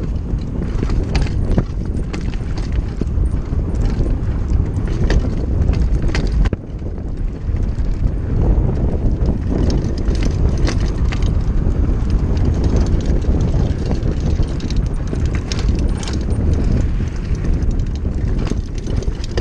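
Downhill mountain bike riding over rough, bumpy ground: a constant low rumble of tyres and air, with frequent rattling clicks and knocks from the chain and frame as it hits the bumps.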